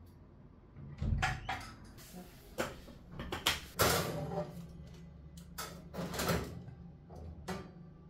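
Kitchen cookware being handled: a frying pan taken out from the drawer beneath the oven, a string of separate knocks, clunks and clatters of metal pans and the drawer being opened and shut.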